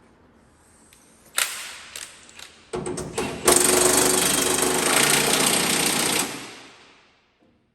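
A knock and a few short bursts, then a power tool with a rapid hammering rattle runs for about three seconds and winds down.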